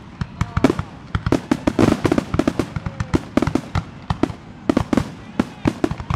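Fireworks display: aerial shells going off in quick, irregular bangs and crackles, several a second.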